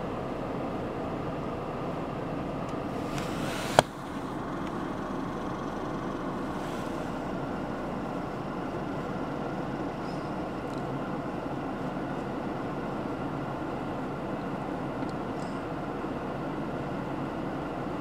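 Strong wind rushing steadily and drifting snow, with one sharp click about four seconds in.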